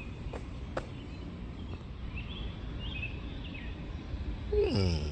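Steady low background rumble with small bird chirps repeating over it and two faint clicks in the first second. Near the end comes a short sound that falls in pitch.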